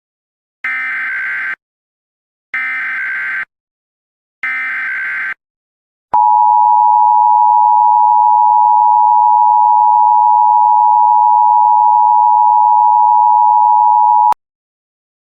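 Emergency Alert System sequence: three short bursts of SAME header data tones, about two seconds apart, then the steady EAS attention signal held for about eight seconds before it cuts off sharply.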